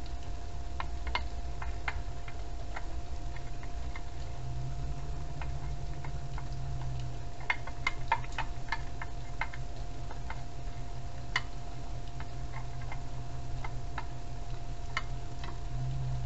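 Irregular light clicks and ticks of hand tools working a bolt, bunched together about halfway through, over a steady low hum.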